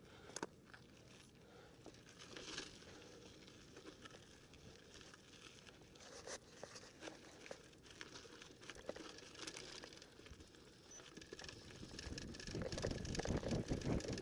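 Mountain bike rolling over loose gravel and dirt: tyres crunching, with scattered rattles and clicks from the bike. A low wind rumble on the microphone builds near the end.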